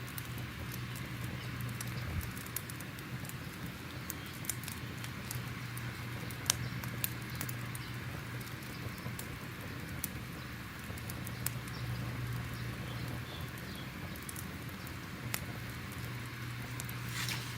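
Crackling fire: irregular sharp pops and snaps over a steady low rumble and hiss.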